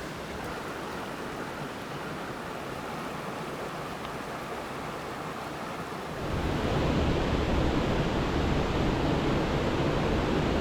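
Waterfall water rushing in a steady roar that grows louder and deeper about six seconds in.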